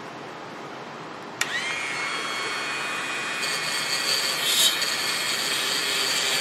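A handheld rotary tool clicks on about a second and a half in and spins up to a steady high whine. About two seconds later its brass wire wheel starts scrubbing against a blower switch held in a vise, cleaning burnt hot spots and rough edges off the switch.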